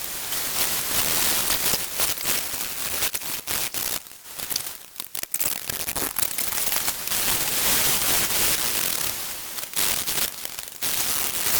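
Hand file rasping in repeated strokes on a steel cutlass blade, with a short pause about four seconds in.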